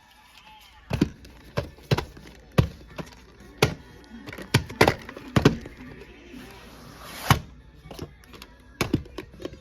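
Irregular sharp clicks and knocks of hard plastic: a VHS tape and its case being handled.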